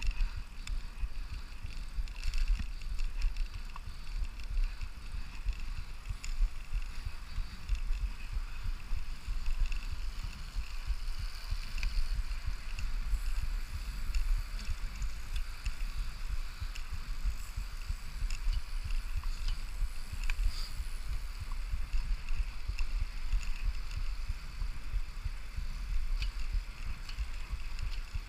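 Wind buffeting the microphone of a camera on the handlebars of a moving Brompton folding bicycle: a steady, unsettled low rumble with tyre and road noise beneath it.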